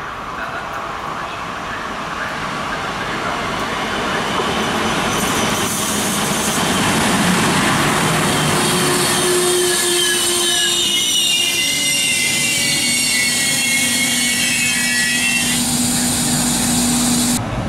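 FS E444R electric locomotive and its passenger coaches running past along the platform. The rumble of wheels on rail grows louder over the first several seconds, then high-pitched wheel squeal rings out from about eight seconds in until about fifteen seconds.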